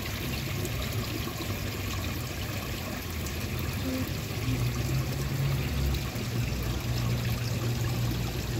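Steady rush of running water at a swimming pool, with a low hum underneath.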